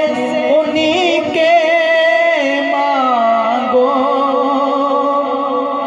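Man singing a naat through a handheld microphone and sound system, drawing out long wavering notes with vibrato between the words of the verse.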